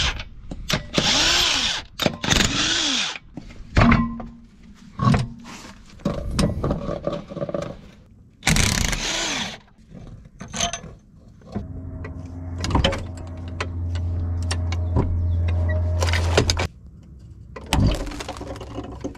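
A cordless power tool run in short bursts, its pitch rising and falling, among metal clicks and knocks from work on the car's underside. Near the end a steady low motor hum runs for about five seconds and cuts off suddenly.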